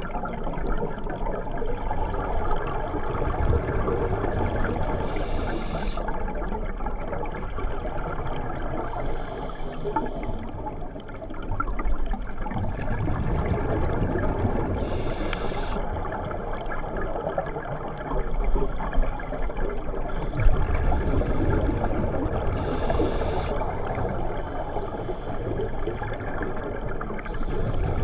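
Scuba regulator breathing heard underwater: a steady muffled water rush with a bubbling burst of exhaled air every several seconds.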